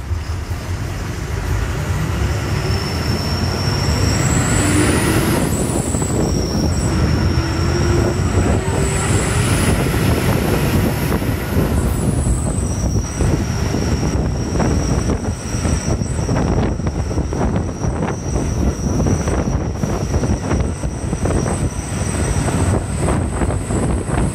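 Ashok Leyland bus's diesel engine running under way with heavy road rumble; its pitch climbs twice in the first ten seconds as the bus picks up speed. Thin, high whines come and go over it, and a run of rattles fills the second half.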